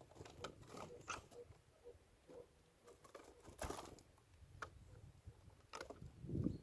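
Faint, irregular clicks and scratching of a small animal moving about.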